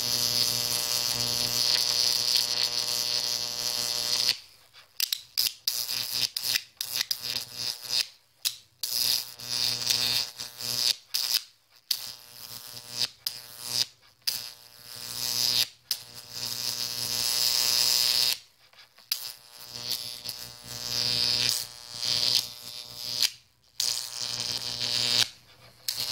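High-voltage arc from a 15 kV transformer buzzing and crackling as it burns through dry ready-mix concrete powder to ground. It holds steady for about the first four seconds, then keeps breaking off and restriking in short, irregular bursts as it jumps between spots where it finds a path to ground.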